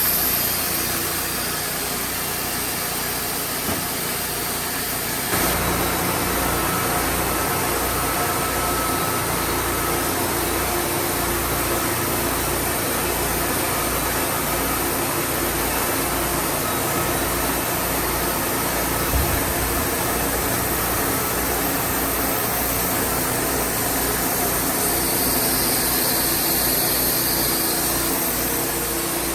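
An engine running steadily; about five seconds in its sound gets fuller, with a low throb.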